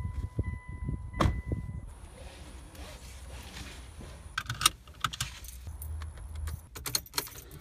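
Car keys jangling at the ignition as the driver goes to start the car: a quick run of light metallic clicks and rattles over the last three seconds or so. Before that there are a few soft thumps and a steady high tone that stops about two seconds in.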